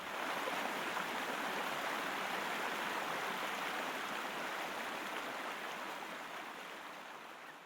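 Rushing water of a waterfall on an upland stream, a steady even hiss that fades out near the end.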